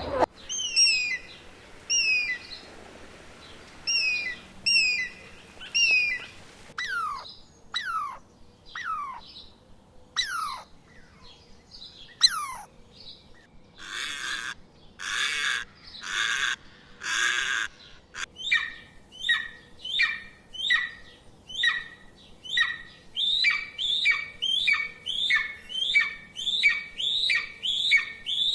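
Bird calls from what sound like several different birds, one after another. Pairs of short high chirps come first, then a few falling whistles. Four harsh squawks follow about halfway, and then a fast run of chirps at about two a second.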